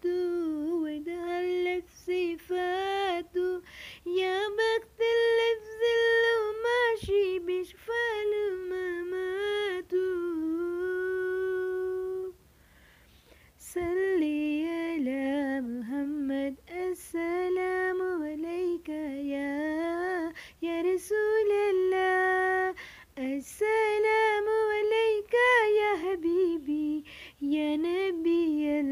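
A woman singing unaccompanied, in long ornamented phrases with no instruments, breaking off briefly about twelve seconds in.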